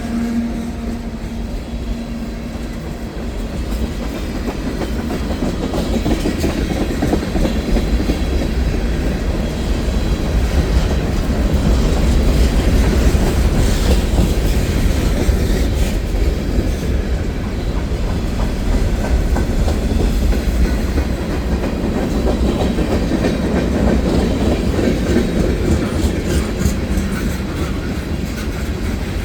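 Freight train cars rolling past with a steady rumble of wheels on rail, and a run of sharp clicks near the end.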